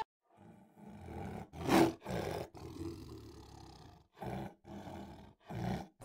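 An animal's rough, low calls in several short bursts, broken by abrupt silent gaps; the loudest comes a little under two seconds in.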